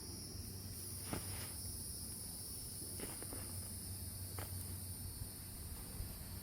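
Steady high-pitched drone of insects such as crickets, with a few short scrapes or knocks about one, three and four seconds in.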